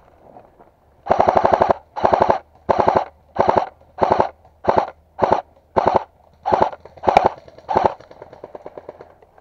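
Airsoft gun firing about eleven short full-auto bursts of rapid shots, the first the longest, with brief pauses between them.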